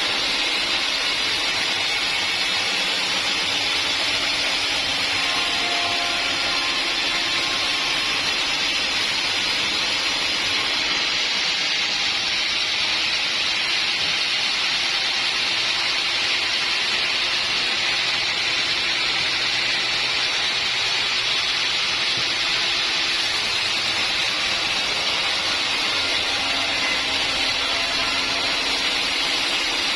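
Portable sawmill's blade running steadily through an acacia log, a continuous high rushing whine of saw and engine that holds an even level throughout.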